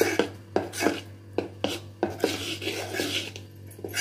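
Metal spoon beating cake batter in a metal bowl: repeated clinks and wet scrapes against the bowl's side in a steady rhythm, about two strokes a second.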